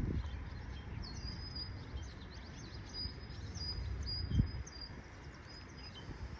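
Small birds chirping and singing, short high chirps with a held high note in the middle, over a low steady rumble. A short thump about four and a half seconds in.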